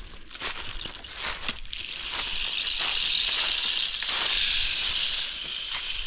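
Rain stick being tipped, its fill trickling down inside as a steady rushing hiss that starts about two seconds in, lasts about three and a half seconds and is loudest near the end. A few light rustles come before it.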